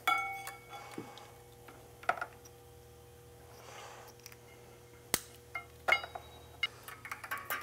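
Small clicks and rattles of plastic wiring connectors and cables being handled and unplugged by hand, a handful of separate clicks spread through, with a brief ringing clink at the start. A faint steady hum runs underneath.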